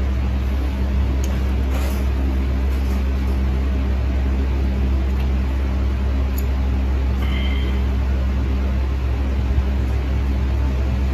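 A steady low mechanical hum, like a motor or fan running, with a few faint clicks and a brief high chirp about seven seconds in.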